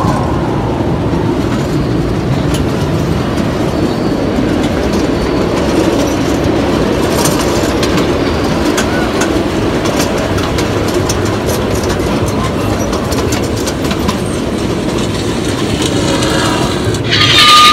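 Miniature ride-on railway train running along its track: a steady rumble with clickety-clack of the wheels over the rails. Near the end there is a brief louder burst with a short high tone.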